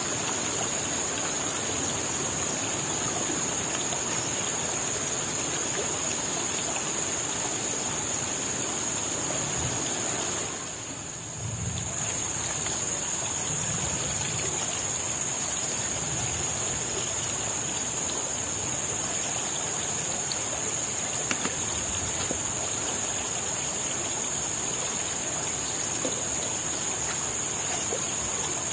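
Big river flowing steadily: an even rush of water that dips briefly about a third of the way through, with a steady high-pitched whine above it.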